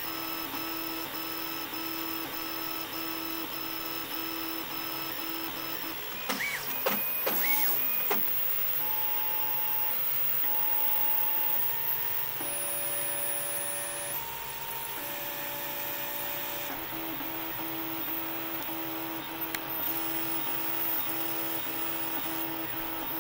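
Stepper motors of a home-built RepRap 3D printer with dual X carriages whining while it prints, in steady tones that jump to a new pitch every second or so as the head changes moves, over a constant hiss. About six seconds in, a louder, noisier stretch lasts about two seconds.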